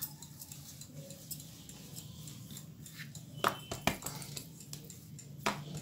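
Light kitchen handling sounds as pizza dough is pressed out by hand on a floured silicone pastry mat. Mostly quiet, with a few sharp clicks and knocks past the middle and again near the end.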